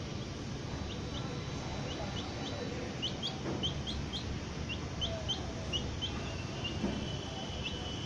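Several baby chicks peeping: short, high, rising peeps, a couple a second, starting about a second in, over a steady low background noise.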